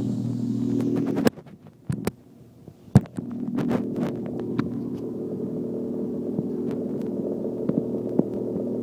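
Steady low hum of reef aquarium equipment such as a pump. It cuts out for about two seconds a second in, with a few sharp clicks, then resumes steadily.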